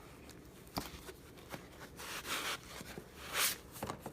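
Packaging being handled: scattered light clicks and knocks, with two short rustles, the louder one about three and a half seconds in.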